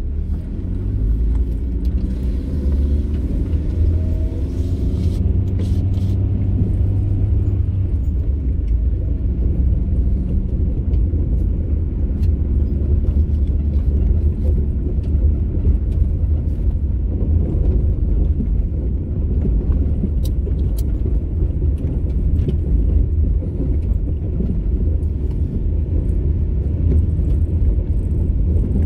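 Car driving on a gravel road: a steady low rumble from the engine and tyres on the dirt, with the engine note rising over the first several seconds as it pulls away. A few faint clicks sound over the top.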